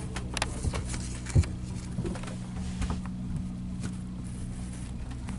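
Steady low hum of the ship's machinery, with rustling and light knocks as paper notes and bedding are handled close by, and one dull thump about a second and a half in.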